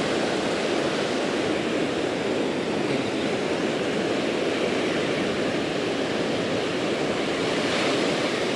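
Ocean surf breaking and washing up the beach in a steady rush of noise.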